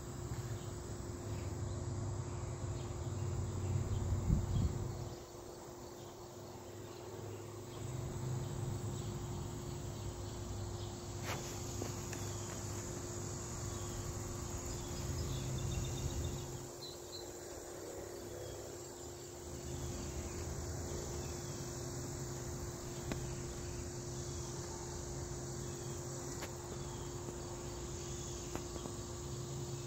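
A steady, high-pitched chorus of calling insects, with a low rumble underneath that comes and goes and a faint steady hum.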